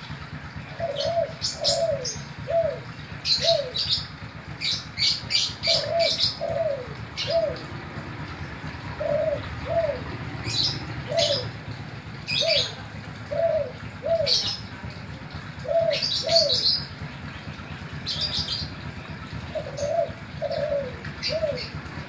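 Spotted dove (Kelantan-type tekukur) cooing, repeating short phrases of two to four falling coo notes with brief pauses between phrases. Short, sharp high chirps from other birds are mixed in.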